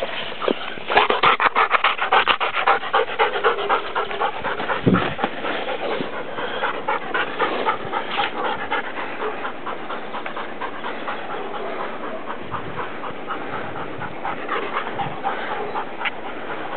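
Dog panting in quick, even breaths, tired after running hard. The panting is strongest in the first few seconds, then goes on more softly.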